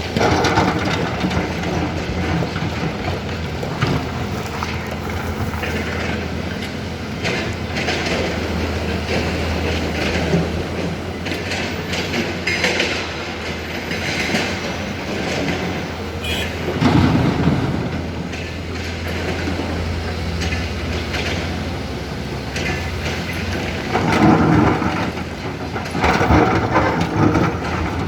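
Hyundai HX 220L hydraulic excavator at work: its diesel engine runs steadily under irregular metallic clanking and rattling, with louder clattering stretches about halfway through and near the end.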